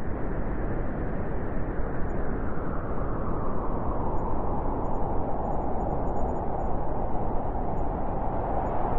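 Steady, even background noise of the boxing venue, a dull hiss with no distinct voices or strikes.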